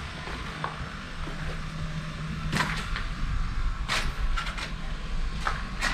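About five short scuffs and knocks from someone stepping over a debris-strewn floor, over a steady background hiss. A low steady hum runs through the first half and then fades.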